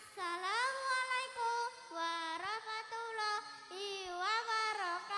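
A young boy singing into a handheld microphone, his high voice holding long notes in short phrases, with no accompaniment.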